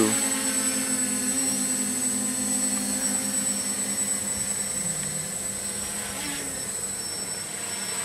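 Quadcopter's four SunnySky X2212 980 kV brushless motors and propellers running in flight, a steady humming drone. Its pitch briefly dips and recovers about five seconds in as the throttle changes.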